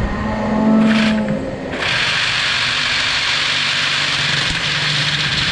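Milwaukee cordless reciprocating saw running, its motor whine steady at first. About two seconds in the blade bites into the steel headlock pipe and a steady, harsh cutting noise takes over.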